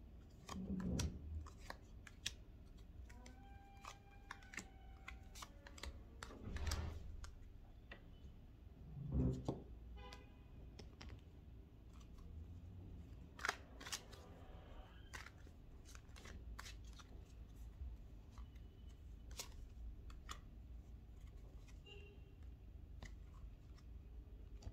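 Tarot cards being turned over and laid out on a table: scattered light clicks and taps with a few soft thuds, the firmest about nine seconds in.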